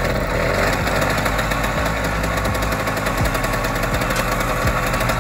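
YuMZ-6 tractor engine running with a loud, fast, hard rattling beat as it is being started, smoke puffing from the exhaust stack.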